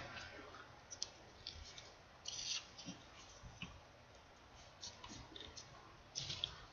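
Faint rustling and light clicks of folded paper triangle units being handled and pushed into place on a 3D origami model, in short scattered bursts about a second apart.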